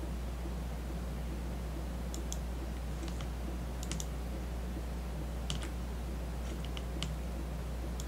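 Scattered sharp clicks of a computer mouse and keyboard, singly and in quick pairs, over a steady low electrical hum.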